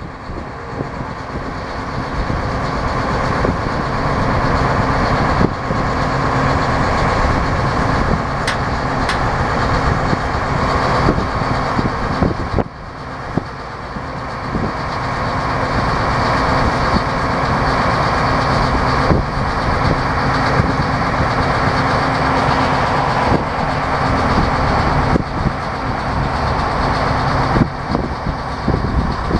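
Gleaner S78 combine's diesel engine and machinery running steadily close by, growing louder over the first few seconds, dipping briefly about twelve seconds in, then building again.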